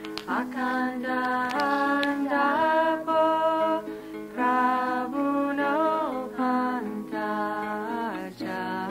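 Devotional song: women singing a melody in phrases about a second long, with sliding ornaments, over steady instrumental accompaniment.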